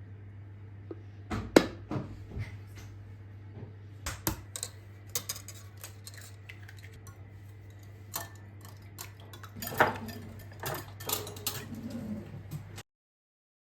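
Kitchen dishes and utensils being handled: scattered clinks, taps and knocks of cutlery against crockery over a low steady hum. The sound cuts off abruptly near the end.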